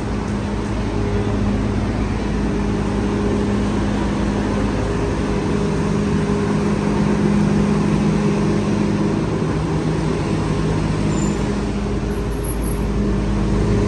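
Busy city street traffic with a steady, low engine hum from nearby vehicles.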